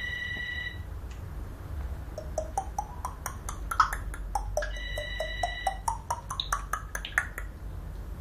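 African grey parrot mimicking a telephone ring: a steady electronic-sounding beep of about a second, another about five seconds in, and between them a fast run of clicky notes that climb in pitch.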